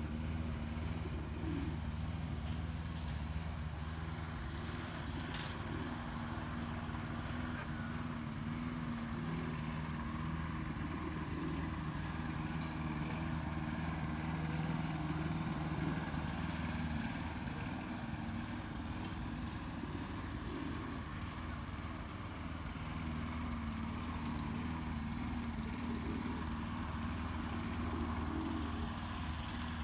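Steady low engine or motor hum, running without a break and with a slight wavering in pitch.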